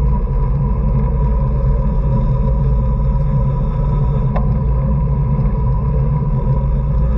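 Steady wind rush and low rumble on a racing bicycle's camera microphone at speed, with a faint steady whine and a single sharp click about four seconds in.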